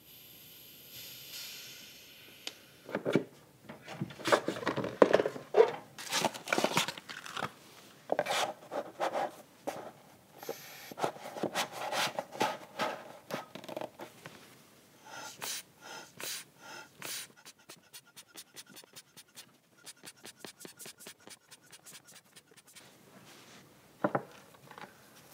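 Puffs of air from an inflatable car air jack being worked under a power amplifier, with knocks and rubbing as crystal insulators are set beneath it. A run of quick, even clicks follows, then one sharp knock near the end.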